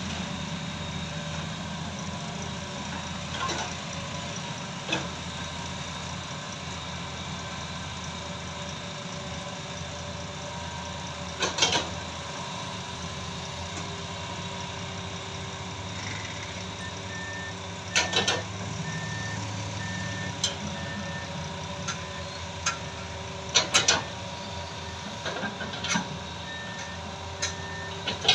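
Tracked hydraulic excavator digging soil: its diesel engine runs steadily, with sharp metallic clanks now and then, the loudest a little before the middle and several more in the second half. A high beeping alarm sounds at an even pace for a few seconds past the middle and again near the end.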